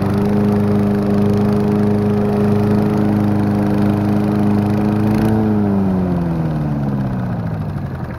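Walk-behind rotary lawn mower's small engine running steadily under cutting. About five seconds in it is shut off and winds down, its pitch falling steadily as it coasts toward a stop.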